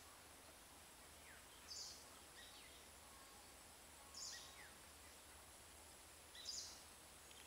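Faint bird calls: a short high call three times, about every two and a half seconds, with a few thinner falling chirps in between, over a steady faint high-pitched hiss.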